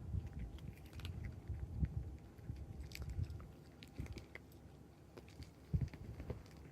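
A kitten chewing its food, heard as a string of small, irregular clicks with one louder click near the end.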